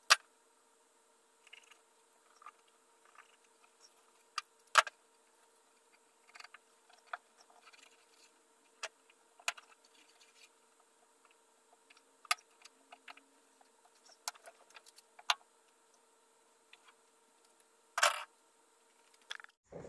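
Handling noises from fitting a cloth headliner inside a bare VW Beetle body: scattered light clicks and taps with a few sharper knocks, the longest and loudest near the end, over a faint steady hum.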